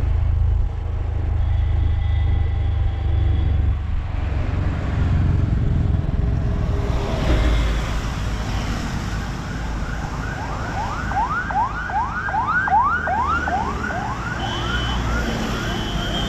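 Wind and road rumble of a Honda Activa 6G scooter being ridden along a road. About ten seconds in, a siren yelps for roughly four seconds in fast rising-and-falling sweeps, about three or four a second.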